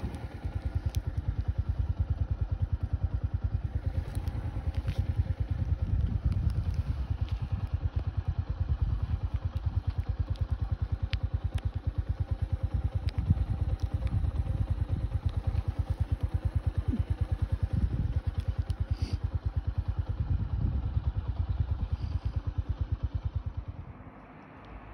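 Vehicle engine running with a fast, even throb, heard from on board while moving; it drops away near the end.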